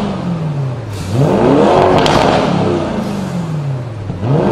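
Lamborghini Urus's 4.0-litre twin-turbo V8 revved while standing, through a Fi Exhaust valved exhaust with the valves open. The revs fall away, rise in one blip about a second in and drop again, and a further blip begins near the end.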